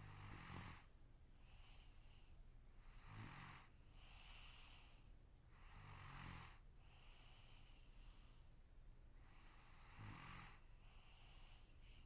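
A sleeping person snoring faintly: four low, rattling snores on the in-breath, a few seconds apart, each followed by a softer hissing breath out.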